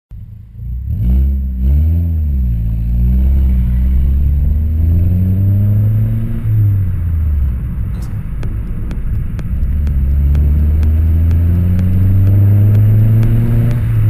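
Exhaust note of a Peugeot 207 RC's turbocharged 1.6-litre four-cylinder through a Milltek turbo-back exhaust with no resonator. It is blipped up and down quickly near the start, then climbs steadily in pitch under acceleration, drops about seven seconds in, and climbs again.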